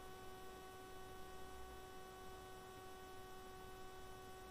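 Faint steady electrical hum: one steady pitched tone with a row of overtones over low hiss, with no other events.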